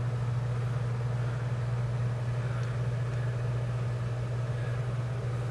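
Steady low hum, unchanging in pitch and level.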